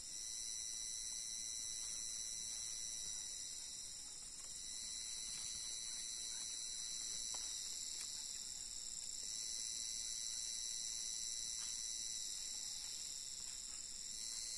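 A steady, high-pitched chorus of forest insects, several layers at once that swell and ease every few seconds.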